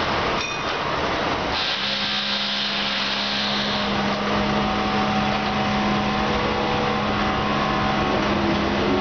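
R160A-2 subway train approaching on an elevated line: a steady rumble of wheels on rail with a steady electric hum. Near the end its motor whine begins to slide in pitch as it draws close.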